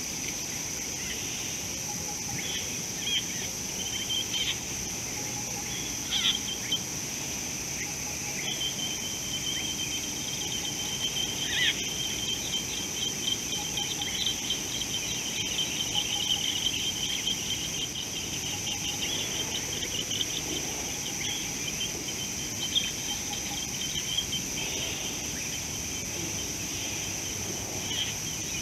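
Outdoor bush ambience: a steady high-pitched insect drone, with scattered bird chirps and a long rapid bird trill through the middle.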